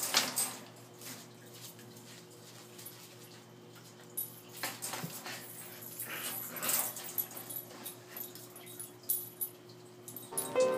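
Siberian husky puppy whimpering as it scrambles about on a tile floor, with scattered short sharp clicks and knocks.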